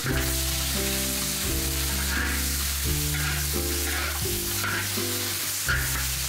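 Fish head pieces sizzling as they fry in hot oil in a large iron wok, with a metal spatula turning them and scraping the pan about once a second. Background music with sustained notes plays over it.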